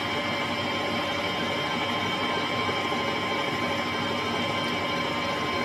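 Manual metal-turning lathe running steadily, its gear train giving a steady whine of several held tones, while the end of a spinning steel bar is centre-drilled.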